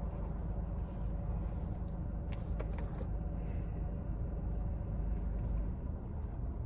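Steady low hum of a car idling, heard from inside the cabin, with a few faint clicks about two and a half seconds in.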